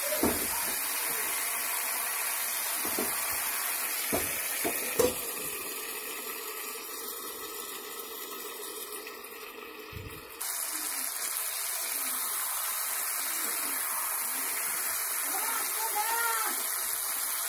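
Papaya-and-potato curry cooking in a kadai on a gas stove: a steady hiss with a few sharp knocks against the pan in the first five seconds. The hiss drops for a few seconds in the middle, then comes back abruptly.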